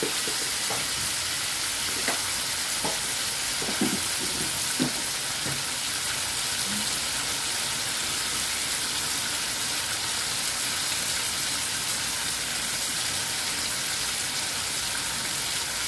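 Fried fish pieces with onion, tomato and ketchup sizzling steadily in hot oil in a frying pan. A few light clicks come in the first five seconds.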